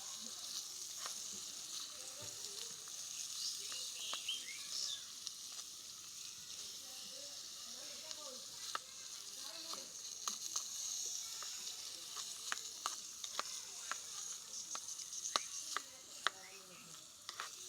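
Food frying in hot oil in a pan, sizzling steadily, with frequent clicks and scrapes of a cooking utensil stirring against the pan, more of them in the second half.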